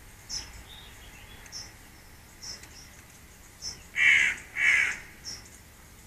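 Eurasian magpie giving two harsh calls in quick succession, about half a second apart, some four seconds in.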